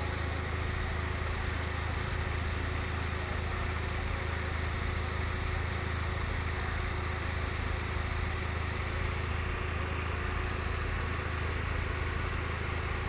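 Hyundai i10's petrol engine idling steadily, with a faint thin steady tone above the low engine drone.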